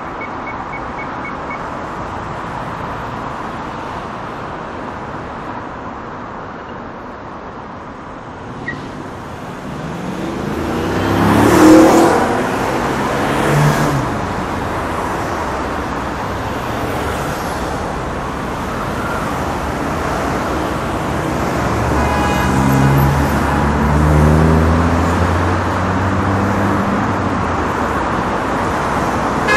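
Heavy city street traffic: a steady wash of engines and tyres. A vehicle passes close and loud about twelve seconds in, and from about twenty-two seconds a heavy engine works hard, its pitch stepping up.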